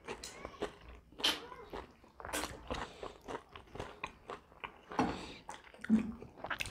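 Close-miked mouth sounds of people eating roast chicken: irregular biting, chewing and crisp crunching, with small wet clicks as meat is torn and chewed.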